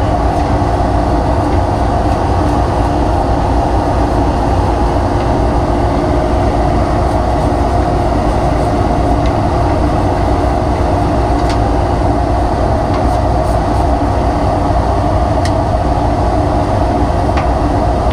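Dust-extraction vacuum running steadily while sawdust is brushed out of the inside of a table saw, with a few faint ticks.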